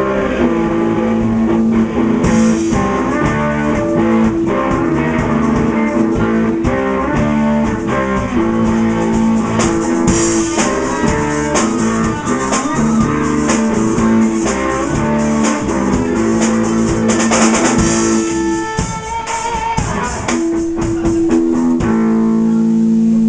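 Live band playing rock: guitar chords over a drum kit, with a sparser, quieter passage about four-fifths of the way through before full held chords return.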